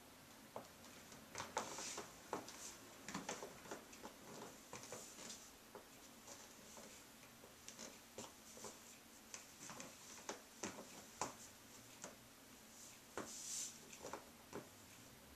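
Stiletto heels of black pumps clicking and scuffing on a tile floor: faint, irregular taps as the feet shift and step.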